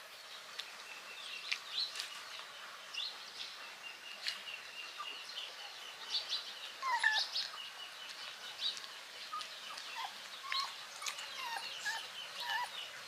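Puppies whining and squeaking in many short, high-pitched cries, with a couple of longer falling whimpers about seven seconds in.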